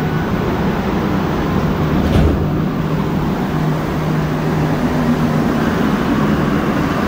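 Rubber-tyred Montreal Metro Azur train running through the tunnel, heard from inside the car: a loud, steady rumble with a low motor hum, and a single knock about two seconds in.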